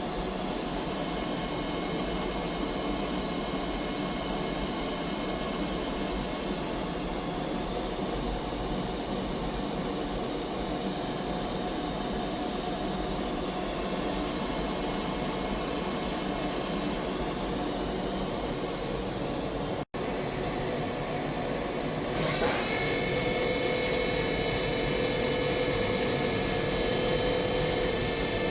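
Kitamura MyCenter 4XiD CNC vertical machining center running under power with a steady mechanical hum. After a cut, a louder steady whine of several high tones comes in about 22 seconds in.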